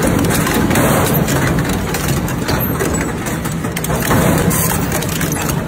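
Twin-shaft shredder with hooked cutter discs running and tearing up scrap metal. A steady machine drone carries constant crunching and clattering of metal.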